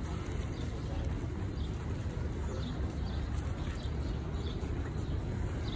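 Steady low rumble of city street traffic, with a few faint short chirps.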